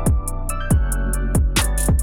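Electronic music with a heavy beat: deep kick drums that drop in pitch, with sharp hi-hat ticks between them.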